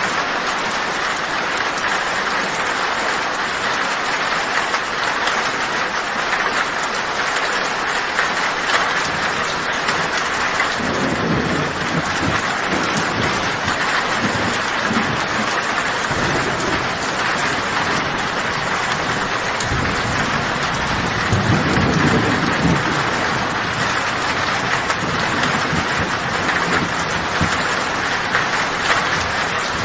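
Heavy rain falling on a tin roof as a steady hiss, with low thunder rumbling in about a third of the way through and loudest about two-thirds of the way through.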